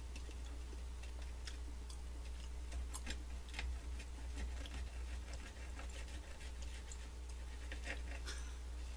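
Table knife cutting a macaron into pieces on a small tray: scattered, irregular small clicks and scrapes over a low steady hum.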